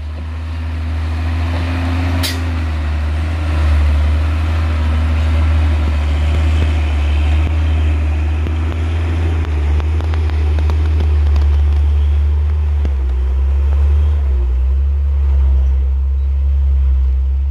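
Heavy diesel truck engines, a loaded Hino truck among them, running with a deep steady drone as they pull uphill on a gravel road. A brief sharp hiss comes about two seconds in.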